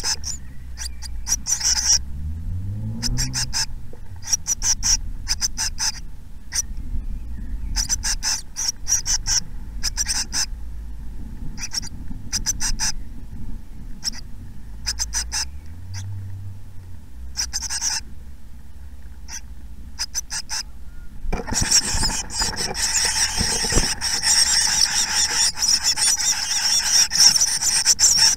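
Tit nestlings in a nest box giving short high-pitched calls in scattered clusters, then, about three quarters of the way through, breaking into a continuous loud hissing begging chorus as a parent comes in with food.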